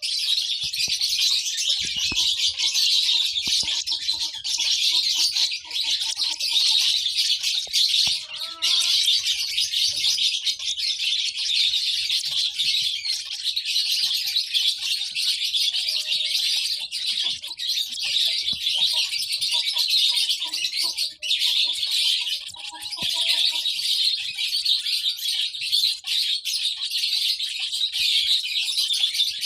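Lovebirds chirping in a dense, unbroken stream of rapid, high-pitched chirps and twitters.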